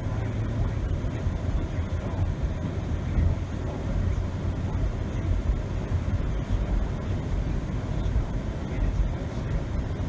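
Car driving on a snow-covered road, heard from inside the cabin: a steady low rumble of engine and tyre noise.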